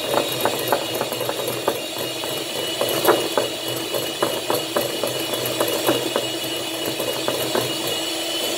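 Electric hand mixer running at medium speed, its beaters whisking egg, sugar and salt in a ceramic bowl until the mix turns foamy and pale: a steady motor whine with irregular clicking throughout.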